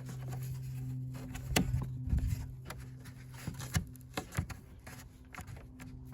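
Scattered clicks and knocks of plastic latch parts being handled and fitted into a minivan's Stow-n-go floor bin, over a steady low hum. The loudest knocks come about one and a half to two and a half seconds in, with a few lighter clicks after.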